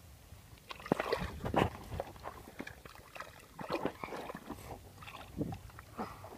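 Hands digging and scooping in wet sandy mud, with irregular squelches and small sloshes of water.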